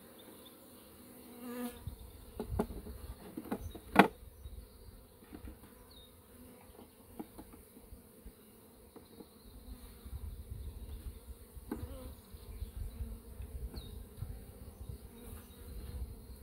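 Honeybees buzzing steadily around an open hive, with a few sharp knocks from handling the hive, the loudest about four seconds in. Low rumbling joins in during the second half.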